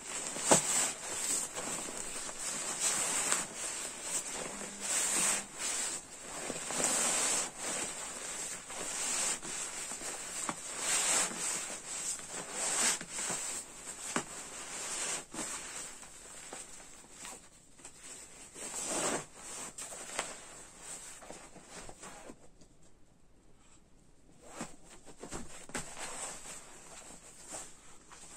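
Rustling and swishing of a down sleeping bag's nylon shell in irregular bursts as it is pushed by hand into its compression sack, with a short lull about three quarters of the way through.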